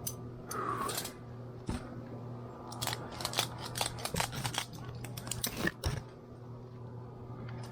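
Irregular sharp clicks and crackles, thickest in the middle few seconds, over a steady low hum.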